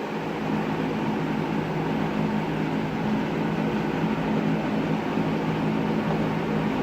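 JCPenney box fan running, a steady rush of air over a low motor hum, growing slightly louder in the first second.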